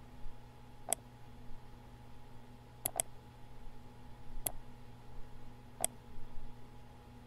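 Computer mouse clicking: sharp single clicks about every one and a half seconds, with one quick double click about three seconds in, over a faint steady hum.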